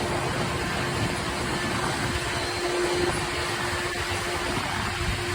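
Helicopter running: a steady engine and rotor drone with a constant hum.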